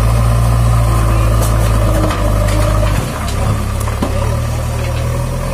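JCB 3DX backhoe loader's diesel engine running as its front bucket digs into and lifts a load of large rocks, with a few knocks of stone against the steel bucket. The engine note changes and drops a little about three seconds in.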